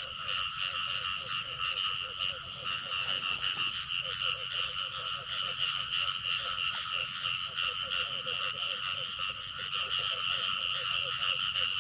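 Night chorus of frogs calling together: a steady high trilling, with runs of lower, rapidly pulsed croaks that come and go.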